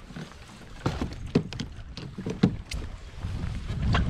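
Knocks and splashing at a kayak's side as a big largemouth bass is brought alongside and landed by hand, with a few sharp knocks about a second in, a second and a half in, and near two and a half seconds, over a low rumble.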